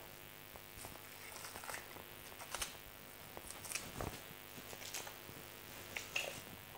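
Faint knife work on a ram carcass: a boning knife easing suet away from the loin along the backbone, with scattered small clicks and scrapes and a soft knock about four seconds in.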